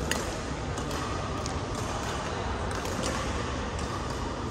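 Badminton hall ambience between rallies: a steady low hum of the large room, with a few faint, sharp clicks scattered through it.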